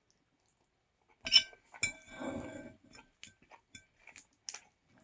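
Two sharp clinks of tableware, about a second in and again half a second later, each with a short ring. They are followed by a brief crunchy clatter and scattered small clicks of eating.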